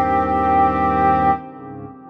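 Brass-led orchestral music: a loud held brass chord that breaks off about a second and a half in, followed by softer, quieter notes.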